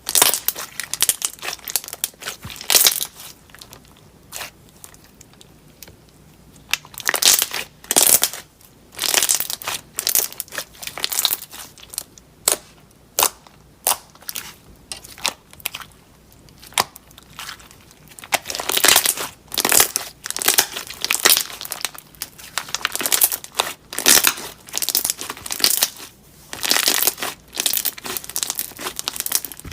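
Slime being squeezed, pressed and stretched by hand, giving many short, irregular crackly bursts with two quieter lulls.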